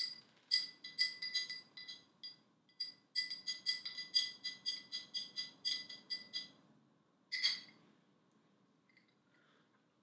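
A straw stirring a drink in a drinking glass, clinking against the glass about four times a second so the glass rings with a bright tone. The clinking stops a little after six seconds in, and one louder, short noisy sound follows about a second later.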